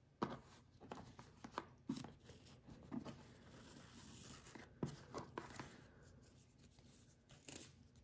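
A fabric ribbon being untied and slid off a cardboard gift box, with quiet handling taps and rustles from the box and card and a drawn-out rubbing hiss in the middle as the ribbon is pulled through.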